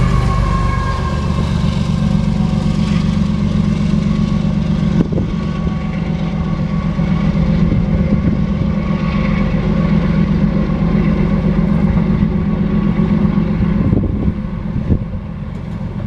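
Loaded oil train of tank cars rolling past: a steady heavy rumble of steel wheels on the rail, with a few sharp clanks. The noise eases off slightly near the end.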